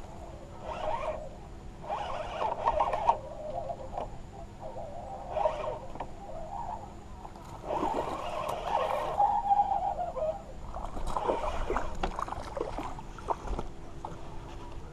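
A hooked snook being fought to the boat on a spinning rod: the reel is cranked in irregular bursts of a few seconds, and the fish splashes at the surface.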